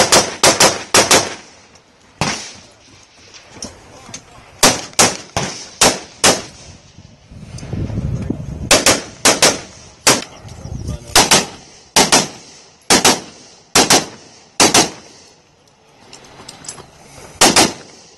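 AR-15-style semi-automatic rifles firing: more than twenty sharp shots at an irregular pace, many of them in quick pairs a third of a second apart. A low rumble runs under the shots for a few seconds around the middle.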